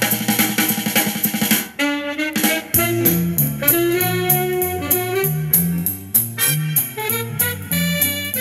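A vinyl record playing on a Micro Seiki MB-10 belt-drive turntable through loudspeakers: instrumental music with a drum kit. About two seconds in the drums briefly drop away, and a new section starts with a stepping bass line under held notes.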